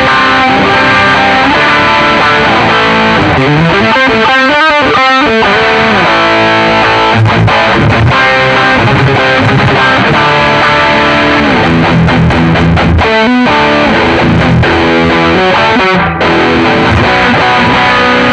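Electric guitar played through a Nux MG-400 multi-effects processor set to a distortion sound with EQ switched on. The guitar plays continuous distorted chords and riffs at a steady, loud level.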